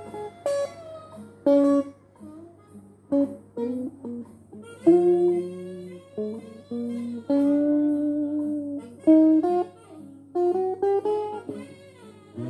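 Electric guitar played solo: short phrases of picked single notes with gaps between them, some notes held for a second or so and a few bent in pitch.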